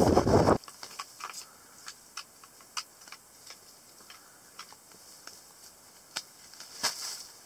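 Wind buffeting the microphone for the first half-second, then it cuts off suddenly. What follows is quiet, with scattered small clicks and crunches from hands working in the slush and ice of an ice-fishing hole.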